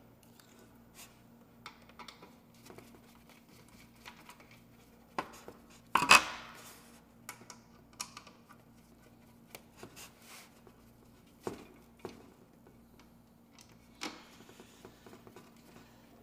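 Scattered clicks and light knocks of ceiling fan parts being handled while the blades are fitted into the opened fan housing, with one louder clunk about six seconds in.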